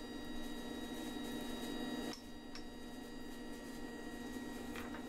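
Steady low machine hum, with a slight dip and a couple of faint clicks about two seconds in.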